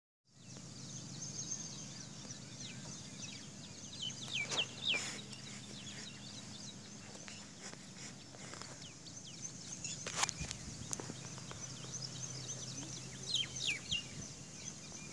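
Outdoor ambience with birds chirping: many quick high chirps throughout, and a few louder calls that slide downward in pitch, around four to five seconds in and again near the end. Under it runs a low steady hum that fades out near the end, and there is one short knock about ten seconds in.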